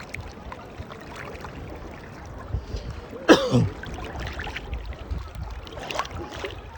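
Sea water splashing and sloshing as a child swims, with scattered small splashes. About three seconds in there is one short vocal sound falling in pitch.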